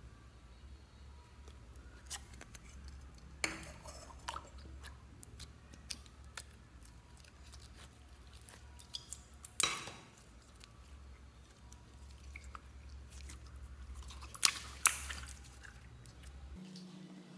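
Slime being kneaded and squeezed by hand: soft squishing with sticky clicks and crackles, and a few louder snaps, over a low steady hum.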